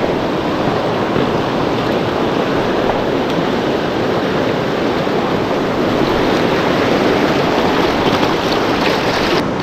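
Steady rushing of river water, the river running high and fast after heavy rain.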